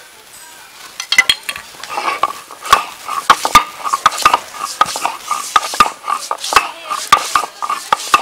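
Stone roller worked back and forth on a flat grinding stone (shil-nora), crushing wet spice pieces into paste: rhythmic gritty scrapes and knocks of stone on stone, about two to three a second, starting about a second in.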